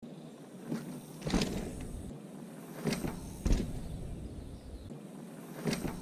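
Mountain bike tyres rolling over a dirt trail, with three pairs of sharp thumps about half a second apart as the bike's front and then rear wheel strike the root and the ground during a bump jump.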